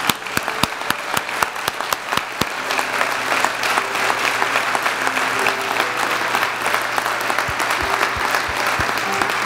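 Congregation applauding, a steady dense clatter of many hands clapping, with faint held musical notes underneath.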